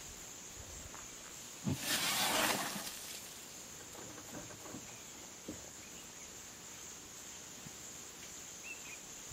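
Steady high-pitched insect buzzing, with a loud burst of rustling brush about two seconds in as an African elephant pushes into the bushes, then a few faint knocks of twigs and branches.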